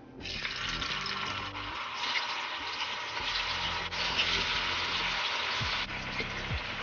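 Cubes of firm tofu dropped by hand into hot oil in a frying pan, sizzling and crackling steadily as they fry.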